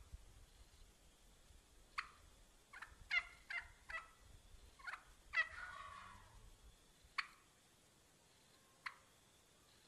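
Wild turkey hen cutting: sharp, abrupt clucks at irregular spacing, bunched into a fast run in the middle, with two lone clucks near the end.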